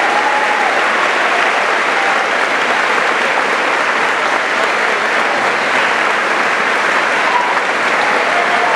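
Sustained audience applause, steady and loud throughout, with a few voices faintly through it.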